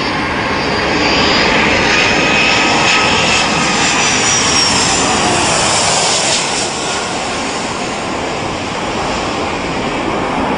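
Twin-engine jet airliner's engines as it passes low overhead on landing approach: a loud jet rush with a high whine that drops in pitch as it goes by, easing off a little after about six seconds.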